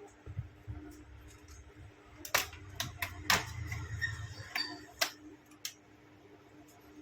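Clicks, taps and handling noise of laptop parts being worked on during disassembly, with a few sharp clicks standing out about two and a half, three and a half and five seconds in.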